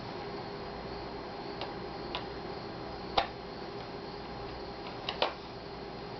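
A few small sharp clicks from a screwdriver and screws at the Asus X54C laptop's screen bezel while the cover screws go back in, the loudest about three seconds in and two close together near the end, over a steady low hum.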